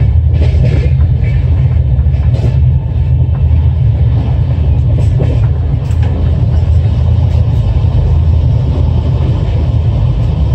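Steady low rumble of a Rajdhani Express passenger coach running on the track, heard from inside the coach.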